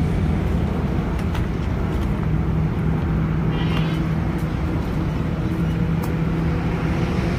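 Steady low rumble with a constant droning hum, like a running engine or motor traffic, with a few faint clicks over it.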